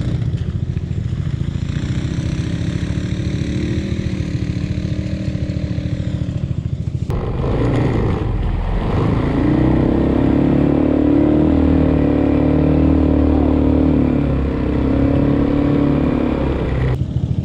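125cc engine of a mini jeep running steadily on a dirt trail. After about seven seconds it is louder and works harder as the jeep drives through a large muddy puddle.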